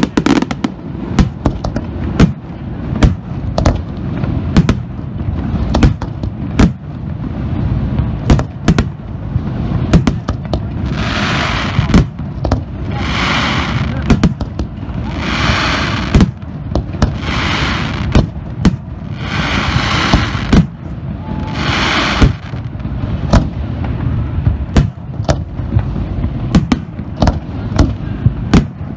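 Fireworks display: a rapid, continuous barrage of aerial shells booming over a low rumble, with six hissing bursts about two seconds apart in the middle.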